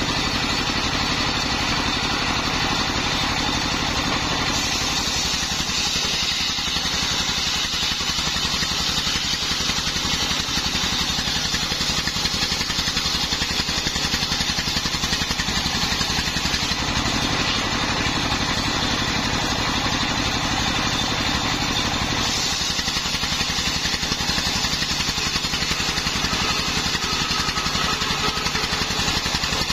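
Stationary single-cylinder diesel engine running steadily, driving a homemade table circular saw as it rips a dry waru log lengthwise. The blade cutting the wood adds a dense hiss over the engine, which strengthens and eases as the log is pushed through.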